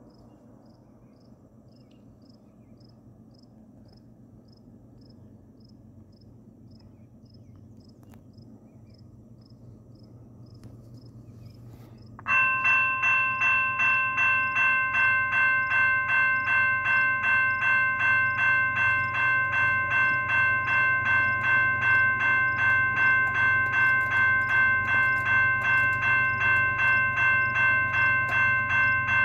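Railroad crossing's GS Type 2 electronic bell starts suddenly about twelve seconds in and rings steadily, about two strokes a second. Under it runs the low rumble of an approaching freight train's diesel locomotives, growing slowly.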